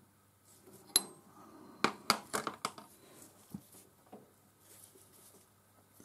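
Metal-on-metal clinks and knocks of a steel chuck key in the cam sockets of a D1-4 camlock lathe spindle, as the cams are released and the key is pulled out. There is one sharp ringing clink about a second in, then a quick run of clinks and knocks around two seconds in, and a few fainter taps after.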